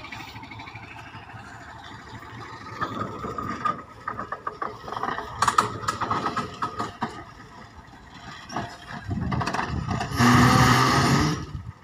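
Small narrow-gauge sugar-railway diesel locomotive moving slowly along the track, its engine running with a run of clicking and clattering from the wheels and running gear. About ten seconds in its horn sounds once, about a second and a half long, the loudest sound, then cuts off.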